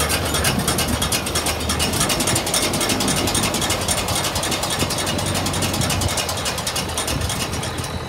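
New Holland BR780 round baler running, its drive chains and pickup making a fast, even clatter over the low, steady hum of the tractor engine driving it.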